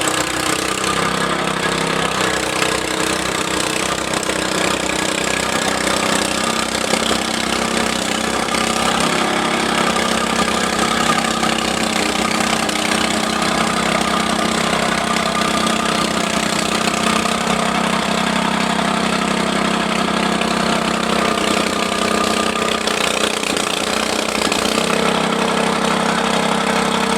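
Tamping rammer's small engine running steadily.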